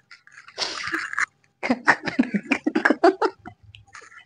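A person's voice making non-speech sounds: a short breathy burst, then a rapid run of short pulses lasting nearly two seconds.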